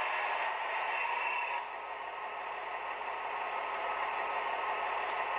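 Sound decoder of a Roco H0 class 628 diesel railcar model playing its diesel engine sound through the model's small loudspeaker, a steady, rattly engine hum. About a second and a half in, a hissing upper layer cuts off and the sound drops a little quieter.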